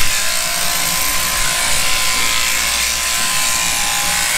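Electric sheep-shearing handpiece running steadily as it clips through a ewe's fleece, with a constant whine.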